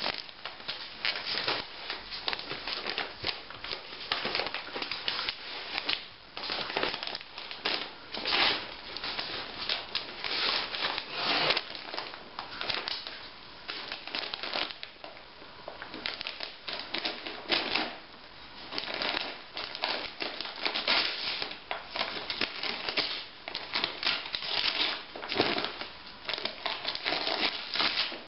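Glossy gift wrapping paper crinkling and tearing as a dog rips into a wrapped present with its mouth and paws, an irregular run of rustling crackles.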